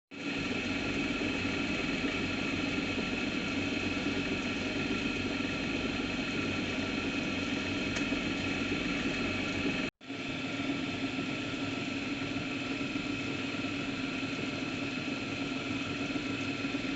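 Drill press driven by a treadmill motor running steadily, with a hum and several held whining tones. It cuts out for an instant about ten seconds in, then runs on unchanged.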